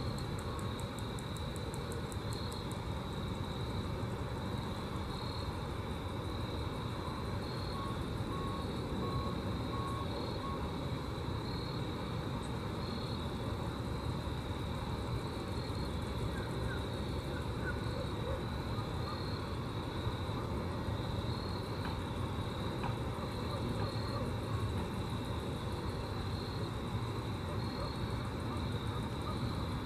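Grasshoppers stridulating: a continuous high buzz with a pulsing rhythm, over a steady low rumble.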